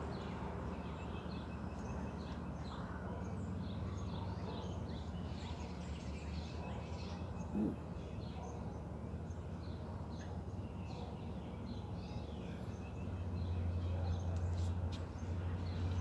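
Small birds chirping on and off over a steady low background hum, which grows louder about thirteen seconds in.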